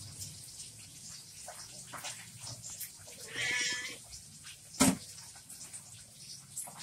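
Orange domestic cat meowing once, about three seconds in, a short high call. About a second later comes a single sharp click, the loudest sound.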